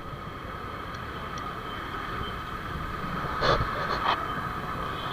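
Steady vehicle and road noise from a motorcycle ride, with two short louder noises about three and a half and four seconds in.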